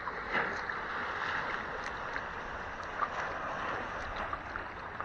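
Water sloshing and lapping around a stand-up paddleboard as it is paddled along, with a few soft paddle splashes.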